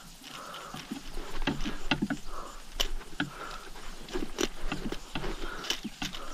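Pedal-drive kayak being pedalled, its rotary crank drive giving irregular clicks and knocks with short squeaks now and then.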